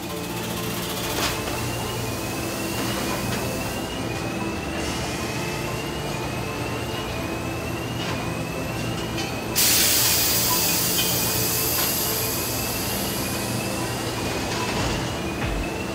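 Foundry machinery on a cylinder-head casting line running with a steady hum, a short rising chirp repeating a little more than once a second, and a few sharp clicks. About ten seconds in, a loud rush of air hiss starts suddenly and slowly fades.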